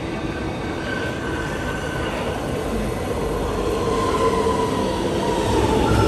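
Metro train running into an underground station, a steady rumble of wheels on rail growing gradually louder. A faint high whine slides slightly down in pitch near the end as it slows alongside the platform.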